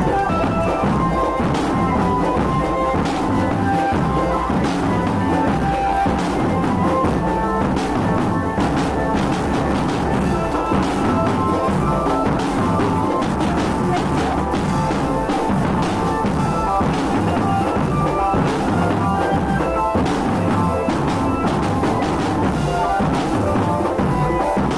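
Marching drum band playing: bass drums and percussion beating steadily under a melody of short, held notes.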